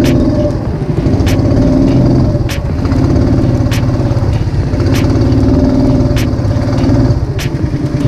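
Boat engine running steadily under way, loud, its level swelling and dipping slightly, with a sharp light tick about every second and a quarter.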